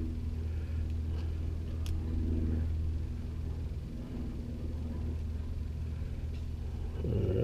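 A steady low mechanical rumble in the background, with a few faint clicks of a small metal pick working an O-ring onto the power steering pump's valve plunger.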